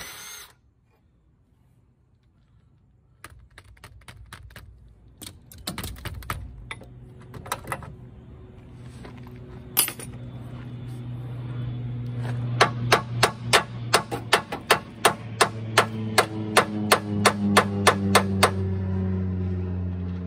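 Hand hammer striking metal: scattered taps and knocks, one sharp blow about halfway through, then a steady run of about twenty blows at roughly three a second. Under the later blows is a low steady engine drone that comes in about halfway and sinks slightly in pitch.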